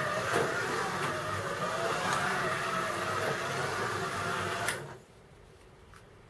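Scalextric Astra slot car's small electric motor whining as the car laps a plastic track, the pitch wavering up and down with its speed. The sound cuts off suddenly about three-quarters of the way through as the car stops.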